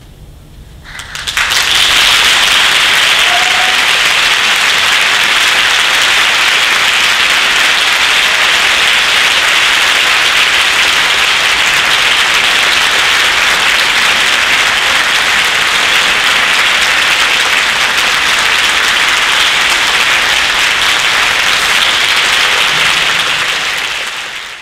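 Audience applause in a concert hall, breaking out suddenly about a second in after a moment of quiet and then holding steady and full, fading away at the very end. It is the ovation at the end of a wind ensemble's performance.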